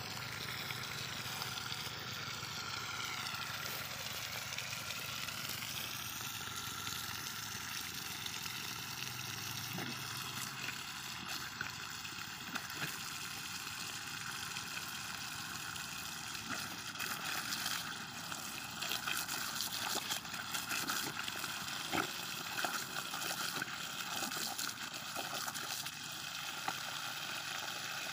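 Water spurting in a thin, steady jet from a small leak in a black plastic water pipe, with scattered crackles in the second half.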